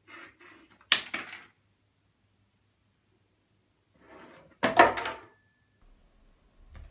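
Small toiletry items on a bathroom windowsill knocked and clattering as a cat paws at them. There is a sharp knock about a second in and a louder clatter near five seconds, each with fainter scuffs before it.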